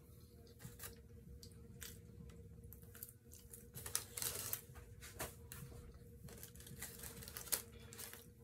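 Close-up eating sounds: chewing and tearing into chicken wings, with crunching and wet squishes, and the paper liner of the wing tray rustling as a hand reaches into it. Scattered sharp clicks, with louder bursts about halfway through and again near the end.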